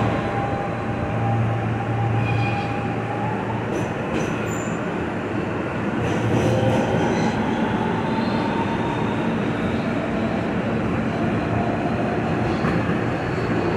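Kawasaki R160B subway car with Siemens propulsion running through a tunnel, heard from inside the car: a steady rumble of wheels on rail. Over it, the traction motors whine in thin tones that rise slowly in pitch.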